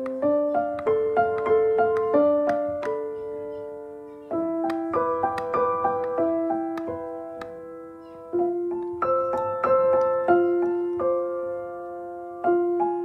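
Background piano music: a slow, gentle melody of single struck notes that ring and fade over held low notes.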